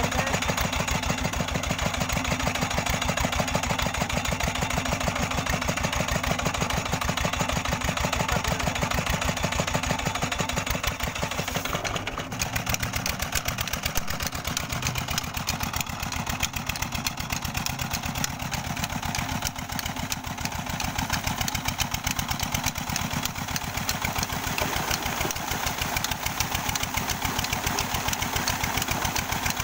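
Old stationary diesel engine running steadily with an even firing beat while it drives a tubewell water pump.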